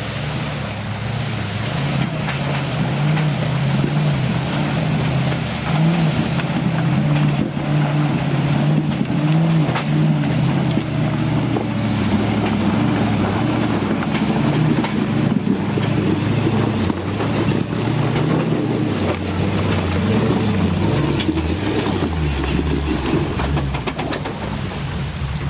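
Land Rover Defender 4x4 engine running under load at low revs, rising and falling as the vehicle crawls up over rocks. Scattered sharp cracks and knocks of stones under the tyres.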